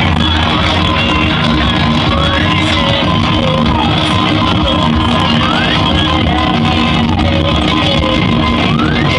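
Loud music blasting from a car sound system, with a heavy steady bass and a repeating sliding lead sound.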